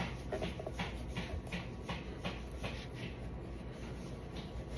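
Knife cutting into a melon's rind and flesh in short repeated strokes, about two or three a second.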